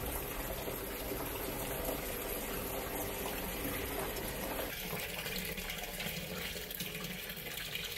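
Water gushing steadily into a top-loading washing machine's drum from its inlet as the machine fills, driven by the newly fitted control board. The rush thins a little about two-thirds of the way through.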